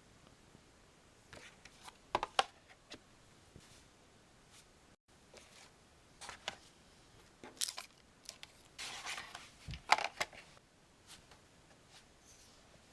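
Hands handling a double-CD album in its slipcase: scattered clicks and rustles of the packaging, with a longer scraping slide about nine seconds in and a sharp click just after it.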